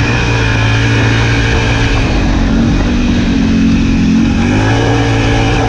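ATV engine running while the quad drives along a dirt trail. The engine note drops about two seconds in and rises again near the end as the throttle is eased off and opened back up.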